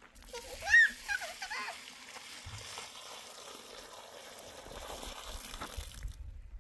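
Bread dough sizzling on a hot pan: a steady hiss that cuts off abruptly near the end. A few high, wavering calls sound near the start.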